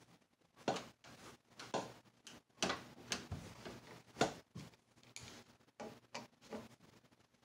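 Irregular knocks and clunks from handling the case of a Digitech 2120 rack-mount guitar effects processor as it is turned around and set down on the table, the loudest about three-quarters of a second, two and a half and four seconds in.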